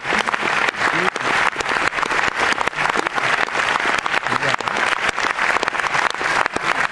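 Cinema audience applauding steadily, many hands clapping at once.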